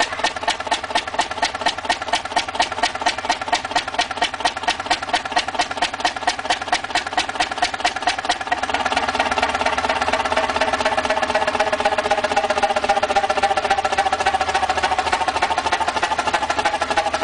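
Large antique multi-cylinder stationary engine running, its exhaust beating in a steady, even rhythm. About eight seconds in it gets slightly louder and the beats run together more.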